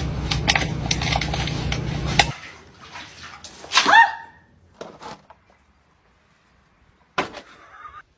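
Steady low hum of a car interior with a few clicks, cutting off about two seconds in; then a single short dog bark about four seconds in, and a brief sharp sound near the end.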